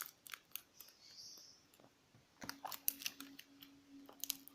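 Faint crinkles and clicks of a taped paper squishy being handled and squeezed. A low steady hum sets in about halfway.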